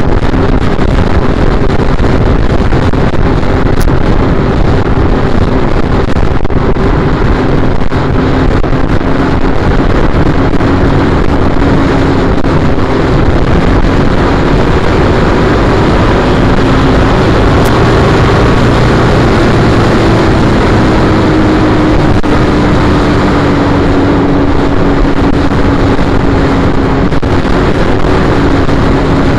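The 865 cc parallel-twin engine of a 2010 Triumph Bonneville T100 runs steadily at road speed under a constant rush of wind on the bike-mounted microphone. The engine note eases down a little about two-thirds of the way through.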